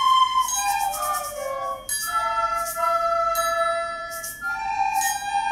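An ensemble of recorders playing a melody in several parts, with held notes and short runs.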